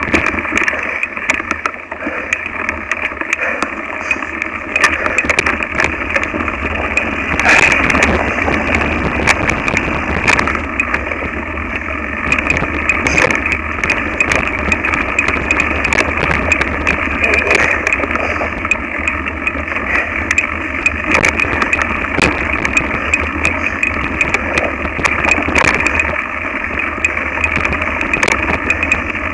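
Mountain bike rattling and clattering over a rough dirt singletrack, picked up by a camera on the handlebar: a steady rumble from the tyres and frame, broken by many sharp knocks as the bike jolts over the ground.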